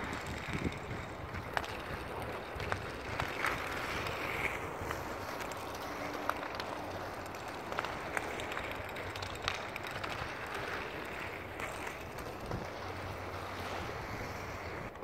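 Steady wind noise on the microphone, with faint light clicks scattered through it.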